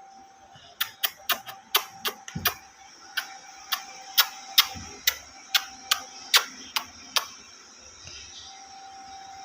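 A series of sharp, irregular taps or clicks, about two to three a second, starting about a second in and stopping about 7 seconds in.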